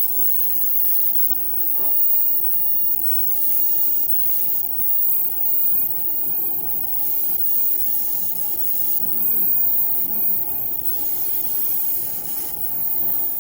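Laser engraving machine running while it marks the surface of a phone: a steady hiss with a constant tone under it. The high part of the hiss shifts every second or two as the marking goes on.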